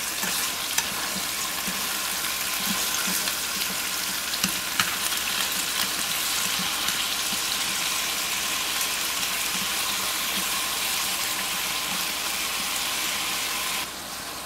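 Small round scad sizzling steadily in hot caramel sauce and oil in a frying pan, being seared so the fish firm up, with a few light clicks of chopsticks turning them. The sizzle drops off suddenly near the end.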